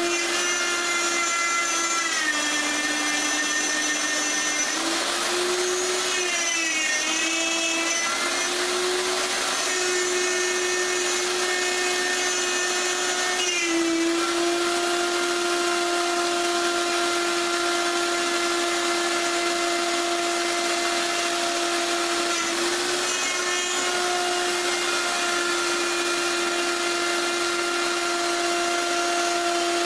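Power tool motor running at high speed with a steady whine, its pitch sagging briefly several times as it takes load and recovering.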